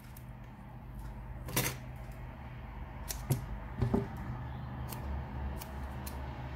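Light clicks and knocks, about half a dozen spread over several seconds, as a roll of double-sided foam mounting tape is picked up and handled on a cutting mat, over a low steady hum.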